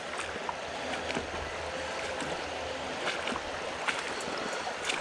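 River water rushing steadily over rocks, with a few light clicks scattered through it.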